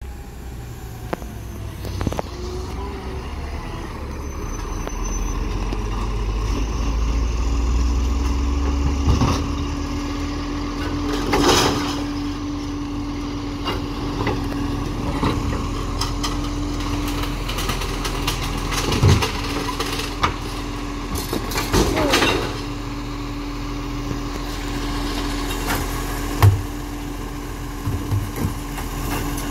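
Side-loader garbage truck's diesel engine approaching and then running at the kerb, with a steady whine under it while the automated arm works. Several clanks and clatters as wheelie bins are lifted, emptied into the truck and set down, the loudest about eleven and twenty-two seconds in.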